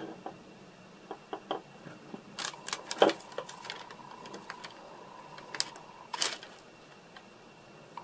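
Hobby knife blade cutting and scraping into a small pink block, with fingers handling the piece: scattered small clicks and scratches, the sharpest about three seconds in and two more around six seconds in.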